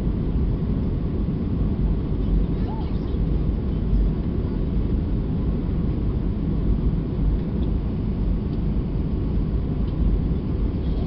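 Steady low cabin rumble inside an Airbus A320 on descent for landing: airflow and engine noise heard through the cabin wall, unchanging throughout.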